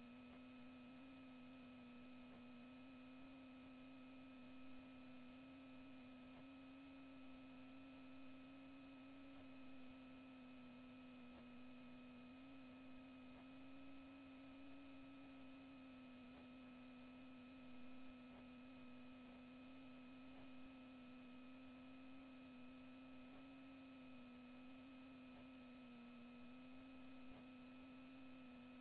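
Near silence apart from a faint, steady electrical hum: one low tone with fainter higher tones above it, unchanging.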